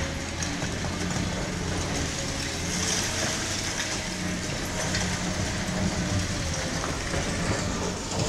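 Diesel engine of a Liebherr R 944 C demolition excavator running steadily as it works, with scattered crunching and clattering of broken concrete.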